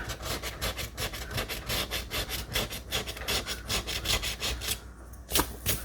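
Scratch-off lottery ticket being scratched: quick back-and-forth scraping strokes, several a second, that stop a little before the end, followed by two sharp scrapes.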